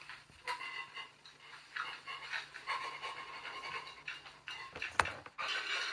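A man's breathy, wheezing laughter in short gasps, about two a second, with a single sharp click about five seconds in.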